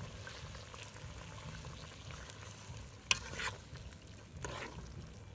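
Metal ladle stirring a thick meat curry in a steel pot, with sharp scrapes and knocks of the ladle against the pot about three seconds in, again just after, and once more near the end.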